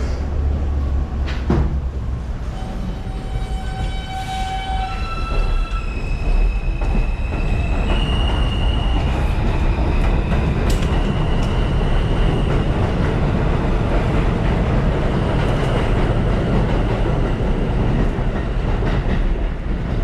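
New York City Subway R160 train accelerating away from an elevated station, its propulsion sounding a series of stepped tones that rise in pitch over the first several seconds, then a steady high whine over the rumble and clatter of wheels on the track.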